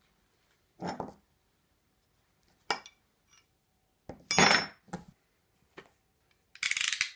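Handling of old iron skeleton keys and tools on a table: a soft knock, a click, then a loud metallic clink with a brief ring as the heavy keys are picked up. Near the end, a quick run of ratcheting clicks as a box cutter's blade is slid out.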